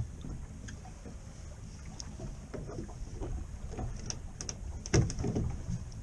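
Deck noise aboard a small fishing boat at sea: a steady low rumble of wind and water with scattered light clicks, and a louder knock about five seconds in.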